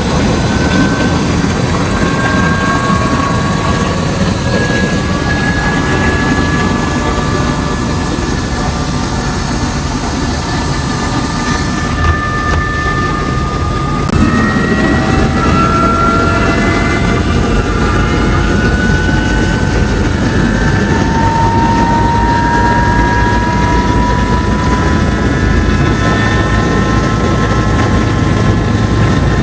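Helicopter engine and rotor noise, loud and steady, heard from inside the passenger cabin, with whining turbine tones that glide slowly upward in pitch and shift about halfway through.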